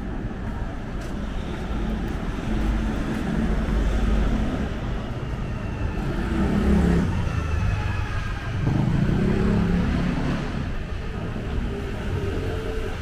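Road traffic: a steady low rumble of vehicles, swelling louder a few times as cars pass.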